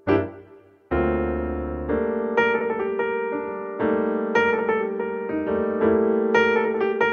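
Piano music: a struck chord that dies away, then from about a second in a steady run of repeated notes and chords.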